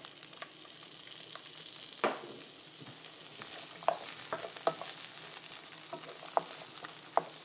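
Asparagus and diced tomato sizzling in hot olive oil in a nonstick frying pan, being stirred, with a handful of sharp knocks of the spoon against the pan. The sizzle grows stronger about two seconds in, at the loudest knock.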